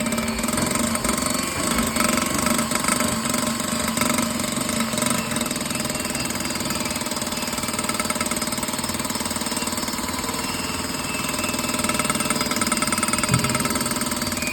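Motorised valve-lapping grinder running steadily, a continuous mechanical hum with a fast, even rattle as the valve is ground against its seat.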